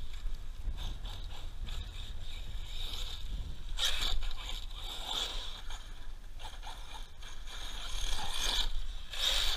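Brushless 6S electric RC truck (ARRMA Siren 6S BLX, 1/10 scale, 4WD) driving over gravel. Its motor and drivetrain whine in surges as the throttle is worked, loudest about 4 s in and again near the end, over a steady low rumble.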